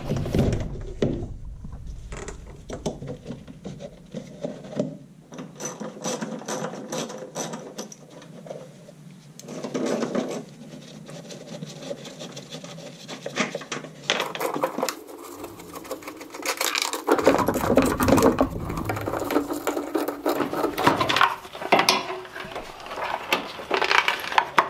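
Hand tools and plastic and rubber intake parts clicking, rattling and rubbing as the stock air intake is taken off a Nissan 240SX, in a string of short cuts with abrupt changes in sound.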